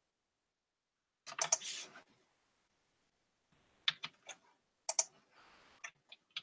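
Computer keyboard keys pressed in short clusters, starting about a second in and coming in a few quick groups of clicks, as keyboard shortcuts are used to copy and paste.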